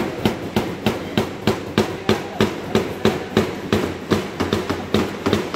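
Hammer blows nailing onto a wooden wiring board: quick, irregular sharp knocks, about three a second.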